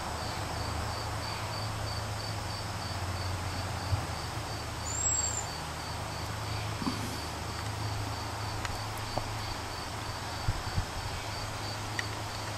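A cricket chirping steadily: an even, regular run of short high chirps over a low, steady outdoor background hum.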